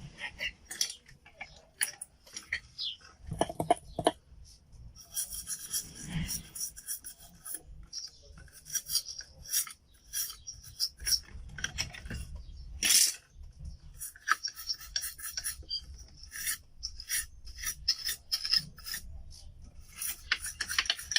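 Repeated short, irregular scraping strokes on a computer motherboard, as corrosion (oxidation) is cleaned off the board behind the video-card socket.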